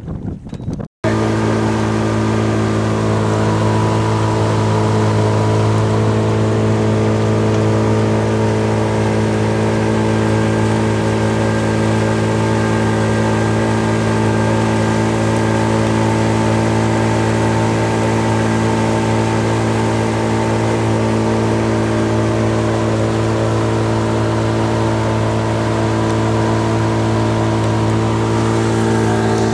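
Pontoon boat's motor running at a constant speed, a steady, unchanging engine hum that starts abruptly about a second in.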